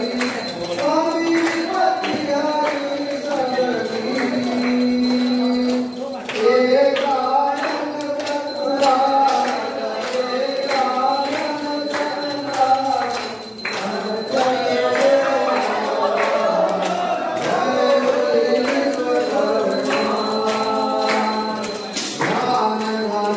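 Devotional song: several voices singing together over a percussion beat of short clicks.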